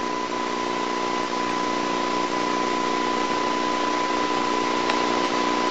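Steady hiss with a constant high-pitched tone and a low hum beneath it, unchanging throughout: the background noise of an old videotape soundtrack.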